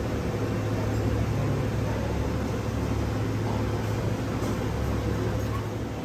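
Steady low hum over an even background noise: indoor room tone.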